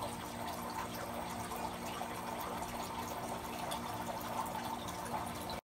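Steady background hiss with a faint low hum, cutting off suddenly near the end.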